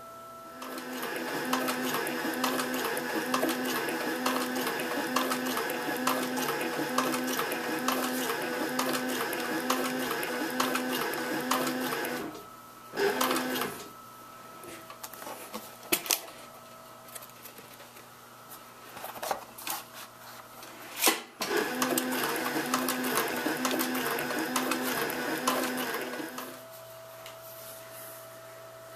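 Cobra Class 4 heavy-duty leather sewing machine stitching through the thick 14 oz veg-tan layers of a knife sheath, running steadily with an even rhythm for about twelve seconds. It stops while the work is handled, with a few clicks and knocks, the sharpest just before it starts stitching again for about five more seconds.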